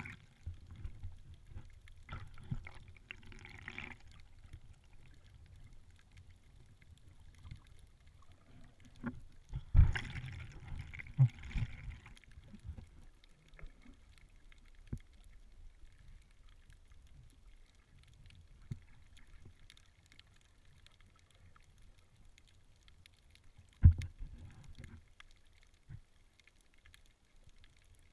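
Muffled underwater sound picked up by a camera held below the surface: a low, sloshing rumble of moving water, with a few sharp knocks, the loudest about ten seconds in and just before the end, and brief hissy patches.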